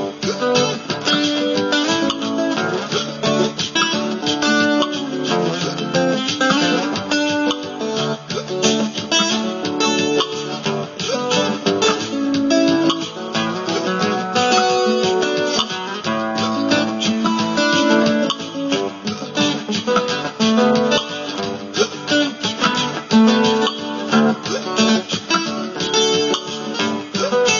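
Layered guitar loops from a one-track loop pedal: many stacked bars of plucked notes and strums running on in a dense, unbroken texture.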